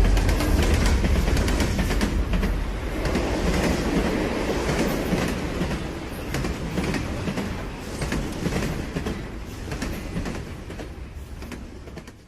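A train rolling along the rails, its wheels clicking over the rail joints, steadily fading away until it is almost gone at the end.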